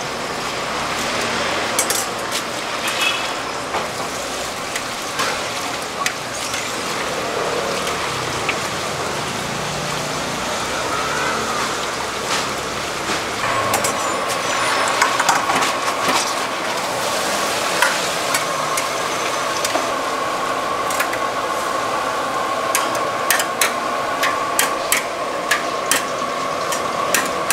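Sweet potato balls deep-frying in oil in a large stainless-steel wok: a steady sizzle, with a long metal ladle and skimmer scraping and clinking against the wok as the balls are stirred and pressed. The clinks come quick and repeated toward the end, and a steady high hum joins about halfway through.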